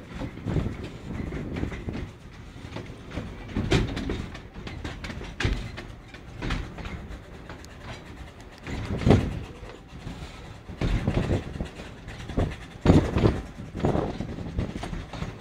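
Narrow-gauge passenger train running, heard from an open-sided carriage: a steady rumble of the wheels and carriage, with sharp knocks over the rail joints, several of them louder.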